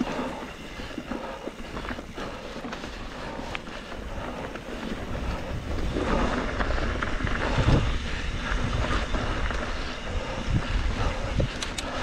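2021 Trek Slash 7 mountain bike running down a rough dirt trail: the tyres rumble over the ground and the bike rattles and clatters over bumps, with wind buffeting the microphone. The rumble grows louder and rougher about six seconds in.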